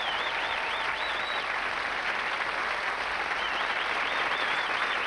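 Studio audience applauding. A warbling high whistle rises above the clapping near the start and again in the second half.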